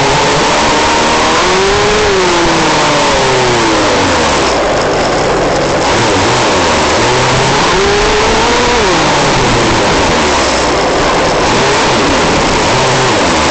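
Onboard sound of an RC Baja buggy's engine revving up and falling back several times as it drives, over a constant loud rushing of wind and tyres.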